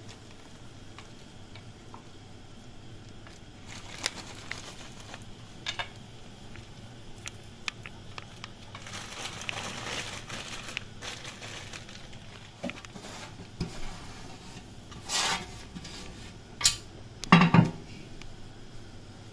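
Kitchen dishes and utensils being handled: scattered light clicks and clinks, a soft rustling stretch about nine seconds in, and the loudest clinks and knocks near the end.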